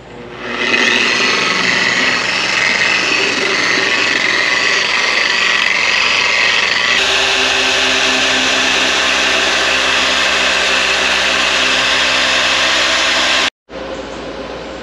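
Electric orbital car polisher with a foam pad running steadily against a car's painted door panel, buffing out oxidised black paint. It spins up about half a second in, its pitch shifts about seven seconds in, and it stops abruptly near the end.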